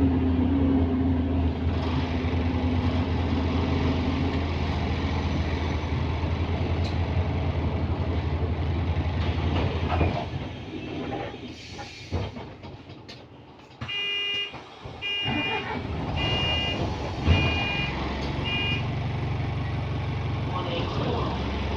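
London double-decker bus heard from inside the cabin, its engine droning while under way. About ten seconds in the engine noise falls away as the bus comes to a halt, then come five short electronic beeps about a second apart. The low engine drone picks up again near the end.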